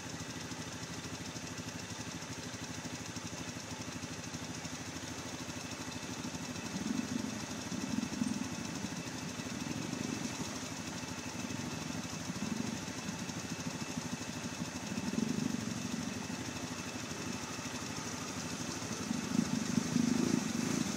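Yamaha Grizzly 700 ATV's single-cylinder engine running steadily, its note swelling several times as the throttle is opened, most strongly near the end.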